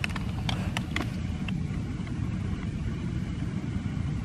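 Wind buffeting the microphone: a steady low rumble, with a few short sharp clicks in the first second and a half.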